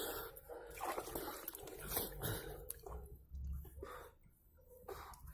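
Hands being scrubbed and rinsed with water: irregular rubbing and splashing with drips, quieter for a while past the middle.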